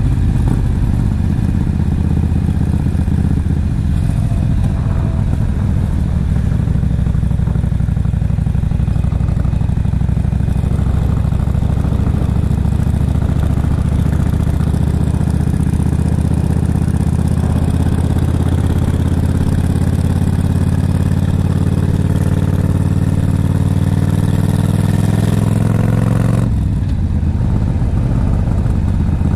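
Yamaha XVS1300CU Stryker's V-twin engine running while the motorcycle rides along, its pitch climbing steadily through the second half as the bike gathers speed, then dropping suddenly a few seconds before the end.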